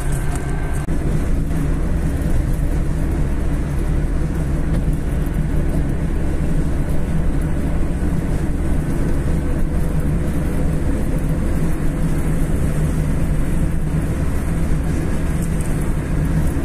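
Steady road and engine noise of a car driving at speed, heard from inside the cabin: a constant low rumble with no change in pace.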